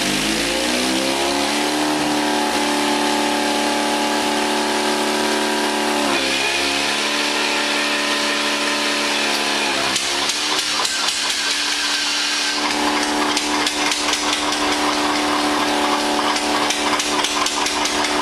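Starting of a restored 1959 John Deere 730's two-cylinder diesel with its pony motor. A steady engine tone rises in pitch at the start and dips twice. From about ten seconds in, a rapid knocking beat joins it and runs on.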